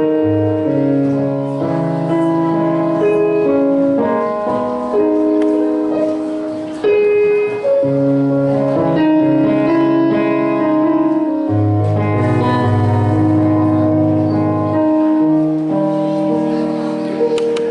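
Keyboard playing slow, held chords over a moving bass line, as a musical introduction.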